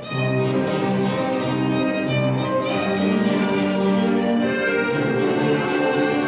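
Instrumental passage from a wedding band: a violin-like string melody of held notes over a steady bass line, with no singing.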